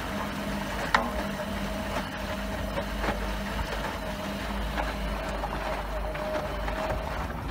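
Tricity Bendix WDR1040W washing machine's drum motor running steadily, turning the drum through its drive belt during a wash, with a constant hum and a couple of light clicks.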